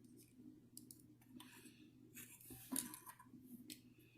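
Faint clicks and light taps of small plastic model-kit parts being handled, as the hair piece and face plate of a Bandai Goku figure are pulled off and swapped. The sharpest click comes nearly three seconds in.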